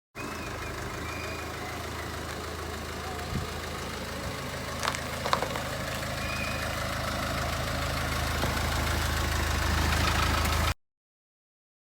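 A motor vehicle's engine running with a steady low hum that grows louder toward the end, with a couple of sharp clicks about halfway through.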